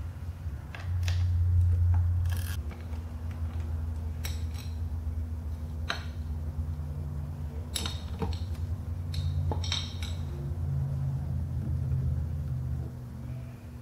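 Torx screws being backed out of a Harley-Davidson Softail's chrome primary access cover and the cover lifted off: scattered light metal clicks and clinks of tool, screws and cover, over a low steady hum.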